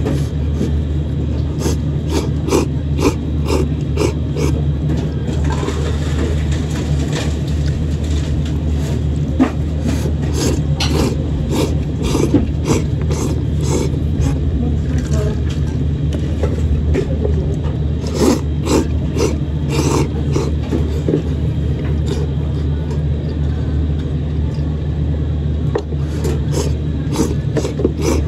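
A man slurping flat kishimen noodles fast, in runs of short, sharp slurps with brief pauses between, over a steady low hum.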